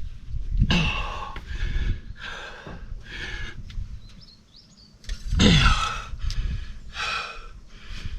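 Heavy breathing: a series of loud, huffing breaths about a second apart, with a faint bird chirp just past the middle.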